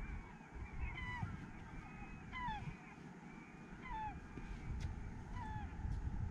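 Gulls calling repeatedly: short cries that bend downward, several birds overlapping, over a low, uneven rumble.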